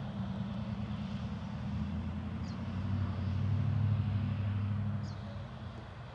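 Low rumble of a passing motor vehicle, swelling to its loudest about four seconds in and then fading away.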